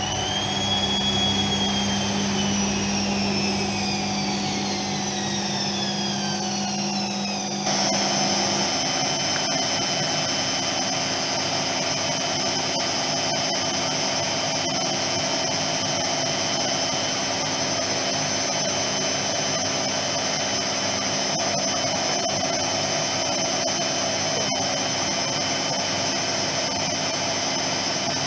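Privileg 3020 washing machine spinning, its motor whining: the pitch peaks about a second in and falls away over several seconds, then switches abruptly to a steady high whine held at speed.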